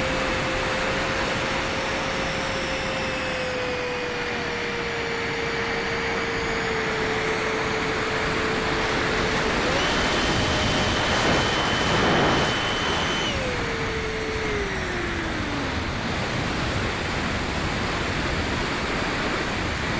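Electric motor of a radio-controlled model airplane flying low passes, a steady whine under a wash of air noise. About ten seconds in the pitch rises and the sound grows loudest, then the whine drops in pitch and fades as the plane goes by and away.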